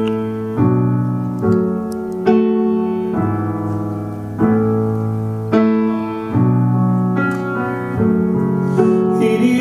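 Piano introduction to a slow song: sustained chords struck about once a second, each ringing out before the next.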